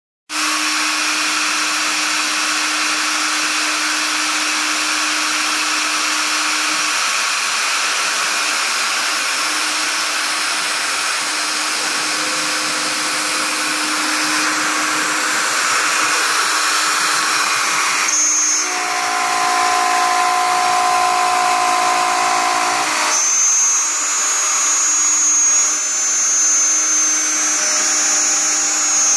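CNC router spindle cutting aluminium composite (Alucobond) panel: a steady loud machining hiss and whine. The pitch pattern changes about 18 seconds in and again about 23 seconds in.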